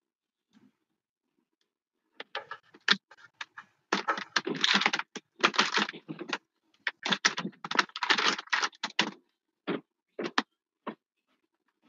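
Computer keyboard typing: quick runs of keystrokes with short pauses between them, starting about two seconds in.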